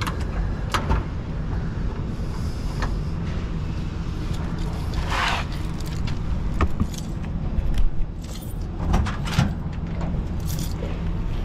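Vehicle engine idling steadily, with scattered clicks and knocks and a short rustle about five seconds in.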